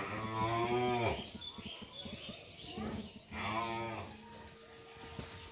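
Cow mooing twice: a call of about a second, then a shorter one a little over three seconds in.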